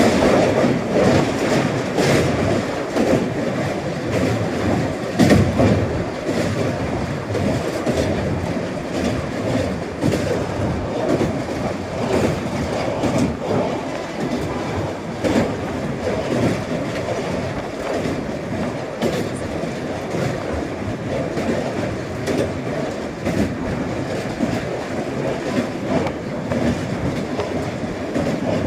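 Train running steadily over a bridge, its wheels clattering over the rail joints.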